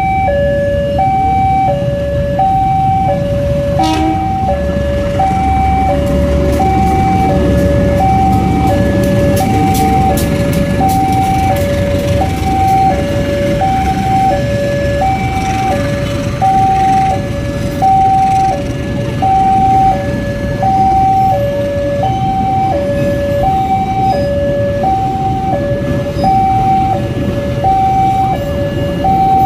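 Railway level-crossing warning alarm sounding its two-tone electronic signal, a higher and a lower tone alternating about once a second without pause. Under it runs the low rumble of a passenger train passing over the crossing.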